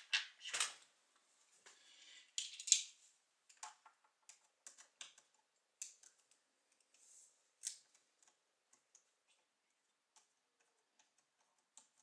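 Small clicks and ticks of a laptop LCD panel being handled and screwed into place with a Phillips screwdriver. There are a few louder knocks in the first three seconds, then sparse faint ticks.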